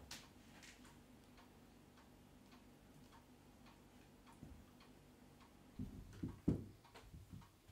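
Wall clock ticking softly and steadily, about two ticks a second. Near the end a few low thumps and knocks come in.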